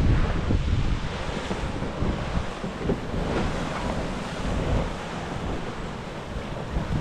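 Strong wind buffeting the microphone with a heavy low rumble, loudest at the start and easing off, over the rush of surf breaking on the rocks.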